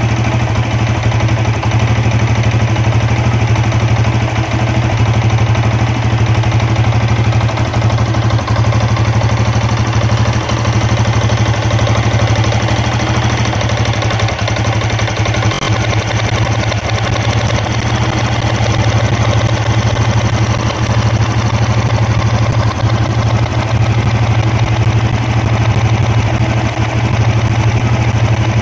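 Yamaha Jupiter Z1 fuel-injected single-cylinder four-stroke engine running at a steady speed with a rough, rhythmic tek-tek-tek knock. The mechanic takes the knock for a worn, loose connecting rod.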